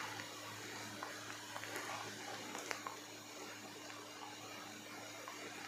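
Quiet kitchen room tone with a steady low hum, and a few faint soft ticks as hands handle and fold dough strips on a wooden board.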